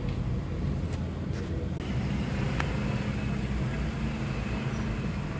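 Steady low hum of engine and road noise heard inside the cabin of a Mitsubishi Pajero moving slowly, with a single faint click about two and a half seconds in.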